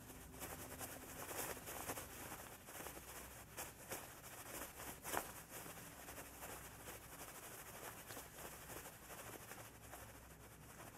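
Faint steady low hum and hiss with scattered soft rustles and crackles, one a little louder about five seconds in.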